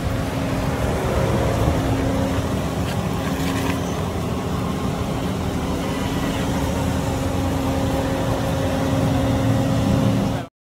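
Car engine running steadily, a low rumble with a constant hum over it, cut off suddenly near the end.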